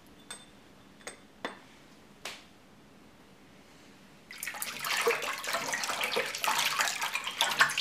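A few water drips falling into a stainless steel bowl of water, then, from about four seconds in, a hand swishing the water around the bowl to spread dissolved wool wash soap through it.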